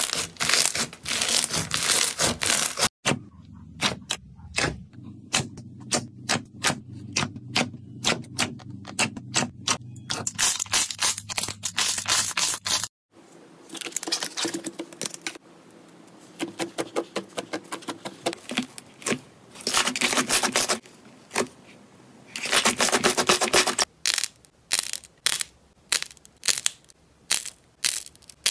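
Slime being pressed and squeezed by hand, crackling and popping in quick runs of sharp clicks. The sound breaks off briefly about three seconds in and again near the middle, then comes back in denser runs toward the end.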